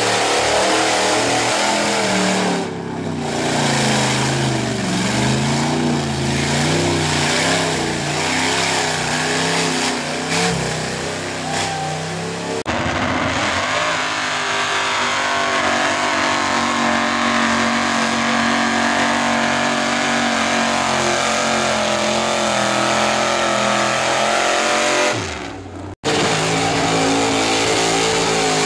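Mud-bogging truck engines revving hard under load, pitch rising and falling as the tires churn through deep mud. The sound breaks off and changes abruptly about 13 seconds in and again about 26 seconds in, as a different truck takes over.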